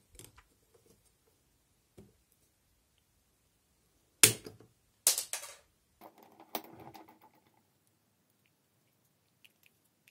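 Metal parts and tools being handled while a speedometer gauge is dismantled. There are a few light clicks, then two loud sharp clacks about four and five seconds in, then a short metallic rattle with a little ringing.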